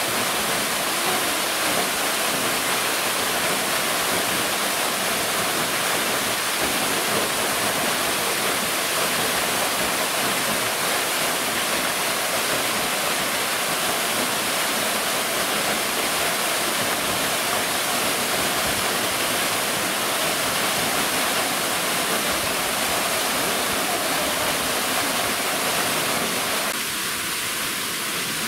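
Steady rushing of falling or flowing water, a loud, even hiss with no breaks; the level steps down slightly about a second and a half before the end.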